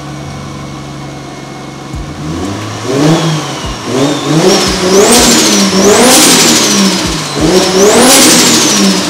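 Single-turbo Toyota 1JZ straight-six (Pulsar GTX3071 turbo) idling, then blipped through several revs from about two and a half seconds in. The turbo whistles up and falls away with each of the bigger revs.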